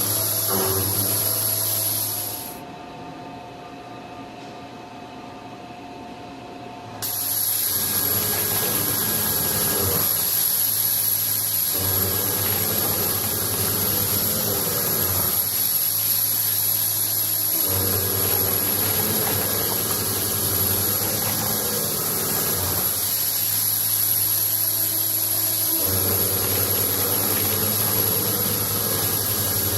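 Machinery running with a steady hum and hiss and a high whine. About two and a half seconds in it drops to a quieter hum for about four seconds, and the pattern of the hum then shifts several times.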